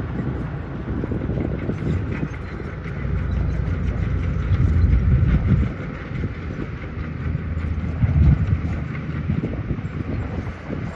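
Diesel engine of heavy earthmoving machinery running under load, a deep rumble that swells about halfway through and again a little later.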